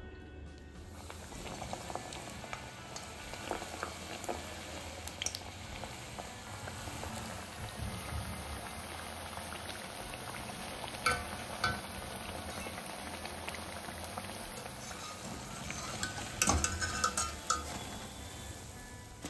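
Battered raw banana slices (bajji) deep-frying in hot oil in a steel kadai, with a steady sizzle. A wire spider skimmer clinks and scrapes against the pan a couple of times midway, then several times near the end as the fritters are lifted out.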